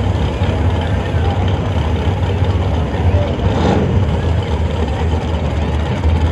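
Drag race car engines idling at the starting line, a steady low rumble, with crowd voices over it and a brief louder burst of noise about three and a half seconds in.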